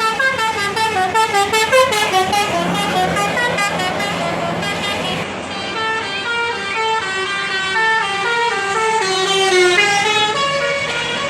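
Tour bus's telolet basuri musical horn playing a tune: a quick run of short notes stepping up and down, then longer held notes.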